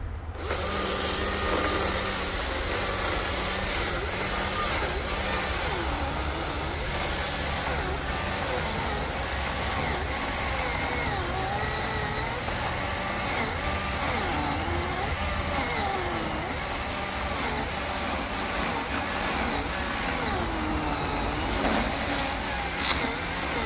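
Battery chainsaw cutting through a thick log, starting up suddenly about half a second in. Its electric motor whine sags and recovers over and over as the chain bites into the wood.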